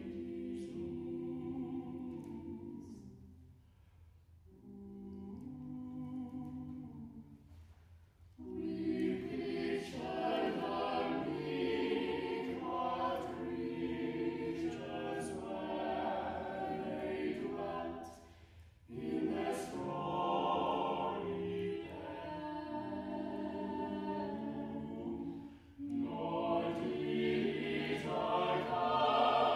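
A six-voice a cappella vocal ensemble (two sopranos, alto, tenor, two basses) singing a choral Christmas carol in sustained phrases with short breaks between them. It is quieter about four to eight seconds in.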